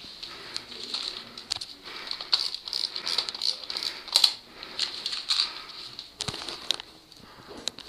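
Footsteps crunching on debris with gear rattling: a run of irregular clicks, crackles and rattles, sharpest about four seconds in and again a little after six seconds.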